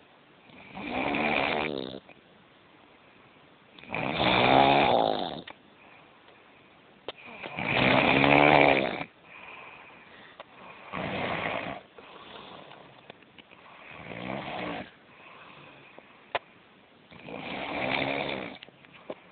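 A man snoring in his sleep: about six snores, one every three to four seconds, the strongest two in the first half.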